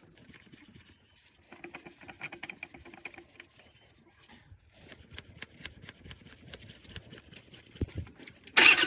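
Faint scattered clicks and handling noises, then near the end the diesel engine of a Shengong 20 suddenly cranks over loudly with an even rhythmic pulse. This is the first start attempt after the high-pressure fuel pump was replaced on an engine that would not start.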